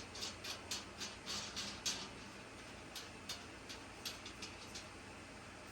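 Light, irregular clicks and scrapes, two or three a second, as small screw-in feet are turned by hand into the legs of a metal shoe rack.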